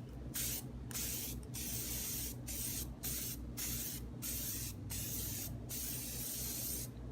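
Aerosol spray-paint can spraying in about ten short hissing bursts, the last one the longest: light coats of paint going onto a clear RC car body.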